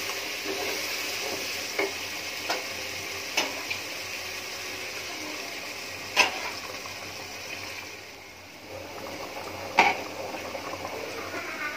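Spiced beef sizzling as it browns in a non-stick pot, stirred with a spatula that knocks sharply against the pot several times. About eight seconds in the sizzle drops off, and after that water added to the pot bubbles, with one more spatula knock.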